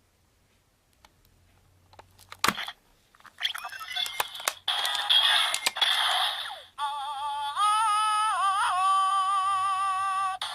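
Zyuoh Changer Final transformation toy: a few clicks, then electronic sound effects, then a wavering synthesized tune, all played through its small built-in speaker.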